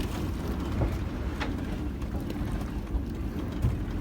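Mekong slow boat's engine running steadily under way, a low even drone.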